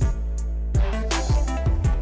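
Background music with drum hits over a steady deep bass.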